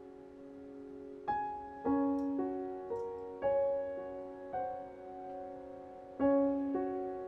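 Slow, gentle solo piano background music, single notes and chords struck every half-second to second and left to ring.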